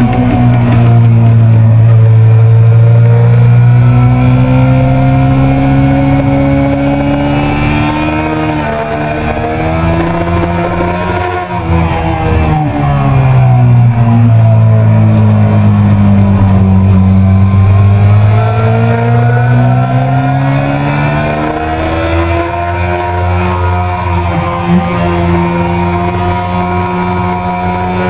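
Yamaha R6's 600 cc inline-four engine under load at track speed. Its pitch holds steady, then rises and falls with the revs through the corners, and briefly drops about eleven seconds in.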